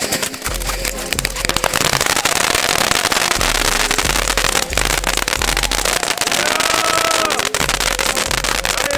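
Fireworks fountain battery spraying with dense, continuous crackling, under background music.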